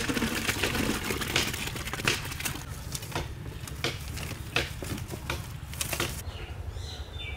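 Chunks of buffalo liver tipped from a plastic basket into a large metal cooking pot, a wet rattling rush in the first second or so. Then irregular knocks and clicks as a long paddle stirs the pot over a wood fire, with a steady low rumble underneath.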